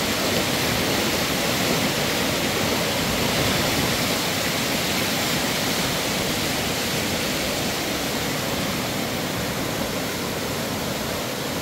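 A river swollen by heavy rain, its fast water rushing in a loud, steady, unbroken noise.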